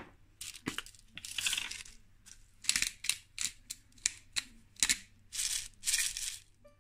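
Dry seasoning of black pepper, oregano and salt being ground and crumbled over the dish: a dozen or so irregular crunchy bursts and sharp clicks, a few of them drawn out longer.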